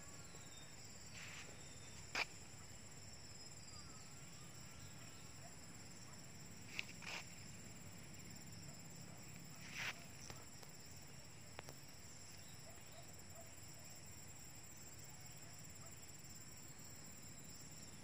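Insects chirring steadily at a high pitch in the background, with a few brief knocks or taps, the loudest about two seconds in.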